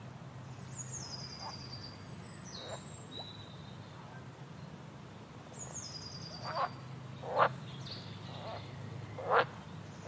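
Forest ambience with a songbird singing a high, descending trill twice, about five seconds apart, over a low steady hum. In the second half come three short, louder animal calls, the loudest about seven seconds in.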